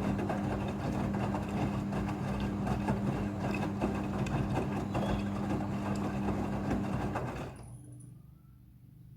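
Midea front-loading washing machine running in its rinse cycle: a steady motor hum over rough water and drum noise, which drops away about seven and a half seconds in, leaving only a faint hum.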